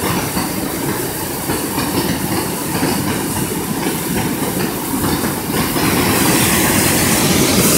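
Fast-flowing river water rushing, a steady noisy wash that grows brighter and a little louder about six seconds in.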